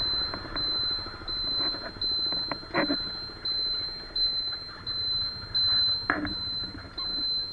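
A high-pitched electronic beep repeating steadily, about three beeps every two seconds, with two dull knocks about three and six seconds in.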